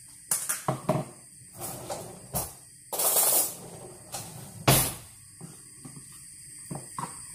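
Clicks and knocks from a plastic tub of spread and a knife being handled at the hob. There is a short hiss just after three seconds and a single sharp knock just before five.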